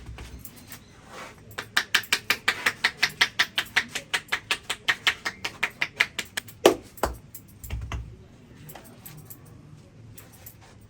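Rapid rhythmic hand-tapping on the head during a head massage, about six sharp slaps a second for some five seconds, ending in one louder sharp hit.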